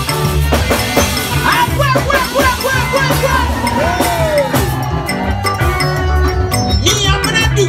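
Live band music with a steady bass and drum beat, played loud. A melody line slides and bends over it about a second and a half to four seconds in.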